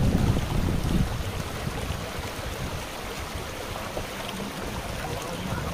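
Shallow stream running over rocks: a steady rush of water, heavier and lower in the first second, then even.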